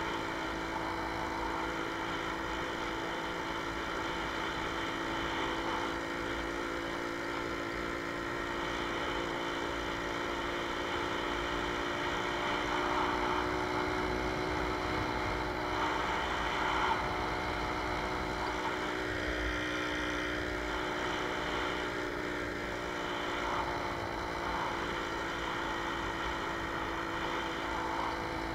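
Jawa 20 Pionýr's 50 cc two-stroke single-cylinder engine running steadily under way at cruising speed, its pitch drifting up and down only a little.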